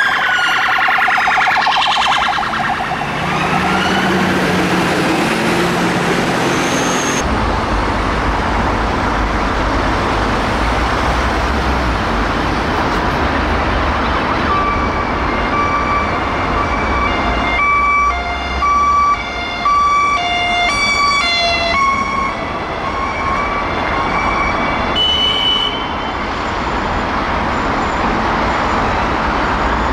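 Police car sirens wailing, their pitch sweeping up and down, then a cut to road traffic. From about halfway, an ambulance response car's siren sounds in steady and short alternating notes that step between a few fixed pitches.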